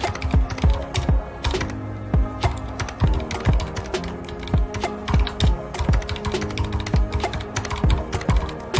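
Continuous typing on a mechanical keyboard with red linear switches: a quick, irregular run of key clicks and clacks. Soft background music with held notes plays underneath.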